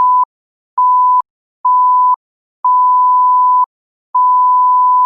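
Electronic beep: one steady pure tone sounding five times, each beep longer than the last, from about a quarter second at first to over a second near the end, with a small click as each beep starts and stops.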